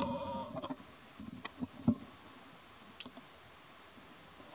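Baby macaque eating: a few scattered sharp clicks and crunches of chewing. At the very start a short wavering pitched sound.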